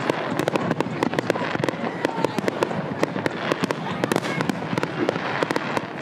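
Fireworks going off in a dense, rapid string of sharp cracks, many each second, without a break.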